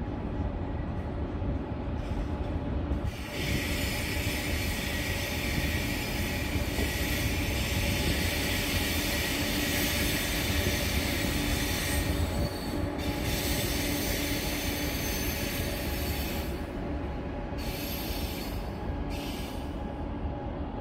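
A KTX high-speed train pulling into the station with a low rumble and hum. A strong high hiss of wheels on rail and braking comes in about three seconds in, dips briefly midway, and breaks up into short bursts near the end.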